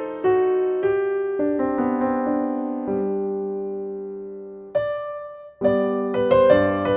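Background piano music: slow notes and chords that ring out and fade, with a short break about five and a half seconds in before the playing resumes.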